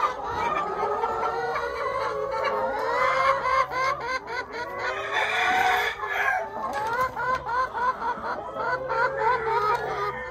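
A flock of brown laying hens clucking and calling around their nest boxes, many short calls overlapping one another.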